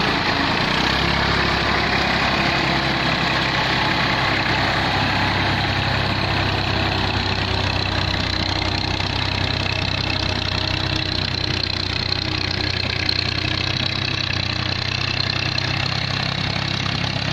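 Massey Ferguson 240 tractor's three-cylinder diesel engine running steadily under load as it drags a cultivator and wooden plank leveller through a flooded rice field. The engine fades slightly as the tractor moves away.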